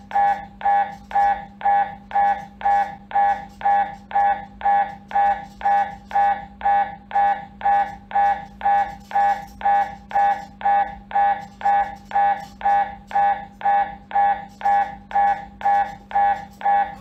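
MRI scanner's gradient coils pulsing through an imaging sequence: a loud buzzing beep repeating about twice a second in an even rhythm, over a steady low hum.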